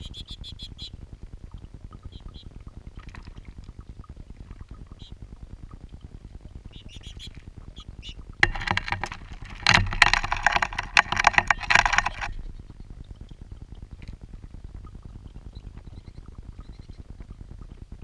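A lesser goldfinch splashing in a shallow rock fountain, beating its wings in the water in a loud flurry of splashes for about four seconds from around eight and a half seconds in. Under it the fountain's water bubbles steadily from its central outlet, with a few faint high chirps near the start.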